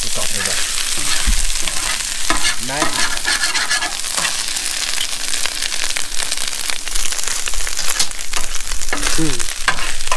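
Bacon and chorizo sizzling in a frying pan: a steady hiss with occasional clicks, as from stirring.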